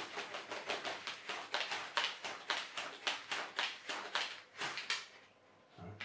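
Rapid run of sharp clicks and taps, about seven a second, from hands working the stunt kite's nose fitting loose on its spar; it stops about five seconds in.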